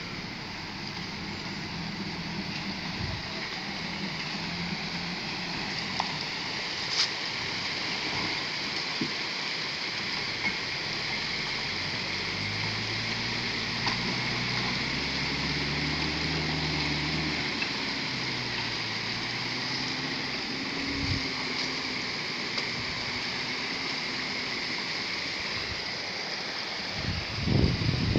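Water running steadily across a dirt road through a shallow ford, with a loaded Toyota pickup's engine pulling away uphill. The engine drone rises and fades through the middle. A loud low rumble comes in near the end.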